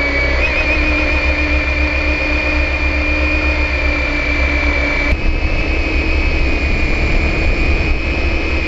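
AR.Drone 2.0 quadcopter's four electric motors and propellers running at flight speed, heard from the camera mounted on the drone: a steady, high whine over a low rumble, shifting slightly in pitch about five seconds in.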